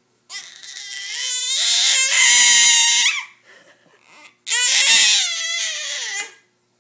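Infant squealing loudly in two long, high-pitched vocalisations: the first climbs and holds for about three seconds, the second, after a short pause, lasts about two seconds and slides down in pitch at the end. Excited baby vocalising rather than distress.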